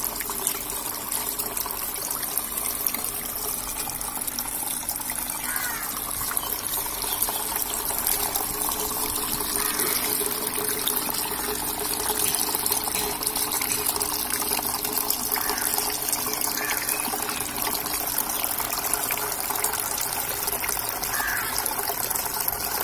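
Water in a small homemade fountain splashing and trickling steadily as several streams pour from cut plastic-bottle spouts into a shallow pool.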